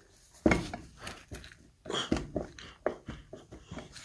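Irregular knocks and clatter of a fire-damaged scooter engine's crankcase being worked by gloved hands as a stuck part is pried at, the loudest knock about half a second in and another cluster around two seconds.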